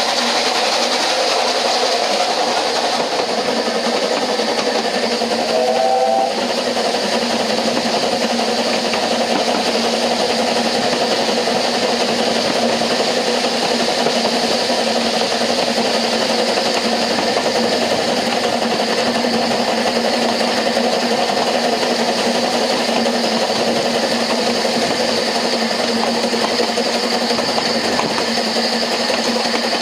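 Steady running noise of a narrow-gauge steam train, heard from an open carriage window right behind its Double Fairlie locomotive: wheels on rail, carriage rattle and a constant hum. A brief higher-pitched note sounds about six seconds in.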